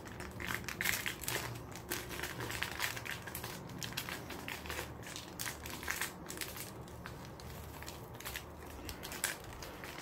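A small clear plastic bag of PC case screws crinkling and crackling as fingers handle it and pull it open.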